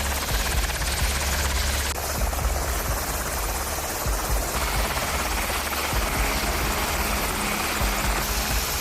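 Helicopter running, its rotor giving a steady low beating chop under a loud rushing engine noise; the sound changes abruptly a few times, as at cuts between clips.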